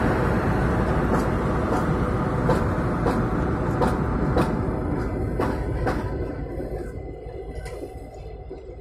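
Double-deck passenger train hauled by electric locomotives running past on the track: a steady rumble of wheels on rail with regular clacks from the rail joints, fading as the train draws away.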